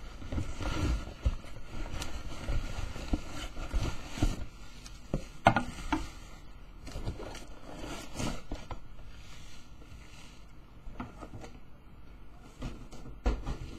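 Bubble wrap and cardboard rustling and crinkling as bubble-wrapped plastic headphone stands are pulled out of a cardboard box and set down on a desk, with a few sharper knocks, the loudest about five seconds in and another near the end.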